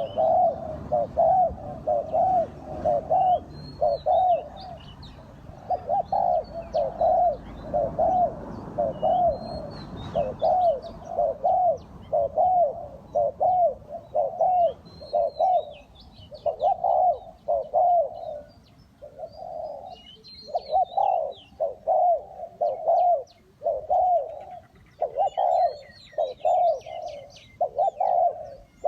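Spotted dove cooing: long runs of short, repeated coos, about two a second, broken by brief pauses. Small birds chirp faintly and higher over it.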